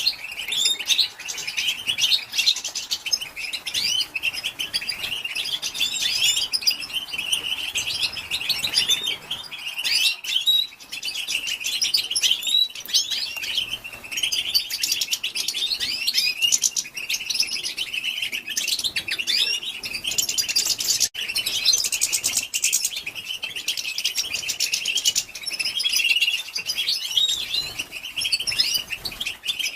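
Female European goldfinch twittering: a dense, continuous stream of rapid high chirps and short trills.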